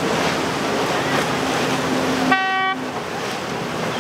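A steady wash of waves, wind and boat engines, broken a little past halfway by one short horn toot, about half a second long.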